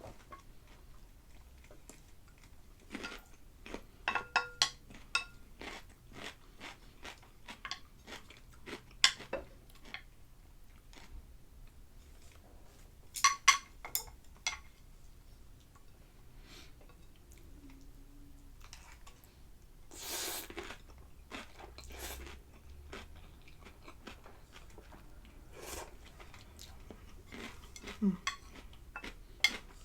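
Close-miked eating sounds of instant noodles with fried egg and cucumber: chewing and crunching, with sharp clicks of utensils against the bowl, the loudest about nine and thirteen seconds in.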